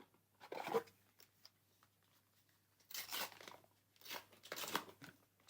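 Star Wars Unlimited foil booster pack wrapper being torn and crinkled, in three short bursts of rustling.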